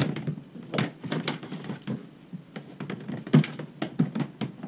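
Irregular light clicks and knocks as a transducer cable is fed down through a hole in a plastic kayak hull and handled against the hull, with louder knocks about a second in and a little past three seconds.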